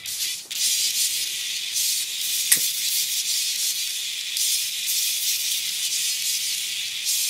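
A steady high hiss that swells and dips in slow pulses, with one sharp click about two and a half seconds in.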